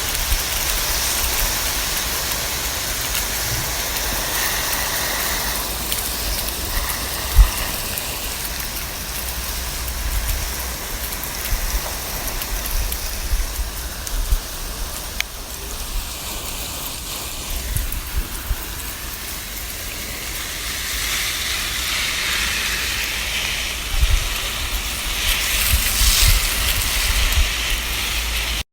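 Water from a garden hose spraying onto plants and leaves: a steady hiss and patter that changes in brightness as the spray moves, louder and brighter for a few seconds past the middle. A brief sharp knock about seven seconds in.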